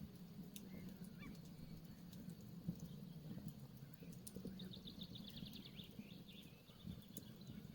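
Campfire crackling with scattered sharp pops over a low steady rumble. A small bird sings a quick high trill about halfway through.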